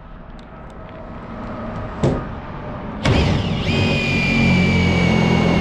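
Cordless driver driving a screw into the camper's metal edge: a sharp click about two seconds in, then from about three seconds in a loud motor whine that drops in pitch as the screw bites and then holds steady.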